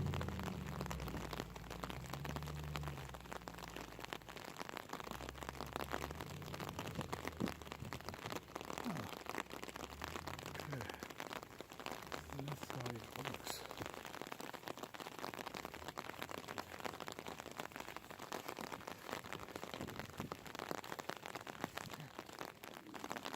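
Rain falling steadily: a dense, even patter, with a low rumble in the first few seconds.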